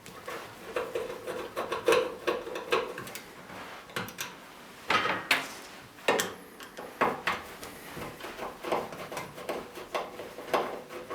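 Phillips screwdriver undoing the screws that hold a vinyl cutter's back cover: irregular clicks, knocks and scrapes of the tool on the screws and casing.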